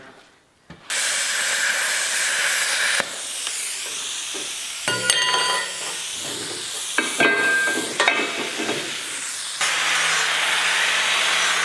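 Plasma cutter cutting a rusty steel pipe: a loud steady hiss of the arc and air, starting about a second in, with crackling spells midway. Near the end an angle grinder takes over, grinding the cut steel edge with a steady hum under the hiss.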